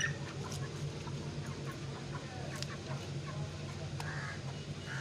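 Chickens clucking in a few short calls, with several sharp knocks and a steady low hum underneath.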